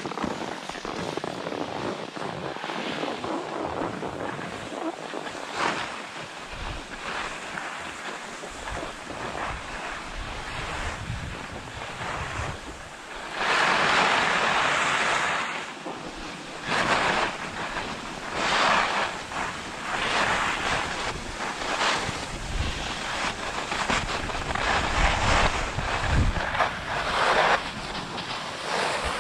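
Skis hissing and scraping over packed snow on a downhill run, with wind rushing over the microphone. The noise swells and fades in repeated surges, loudest for about two seconds a little before halfway.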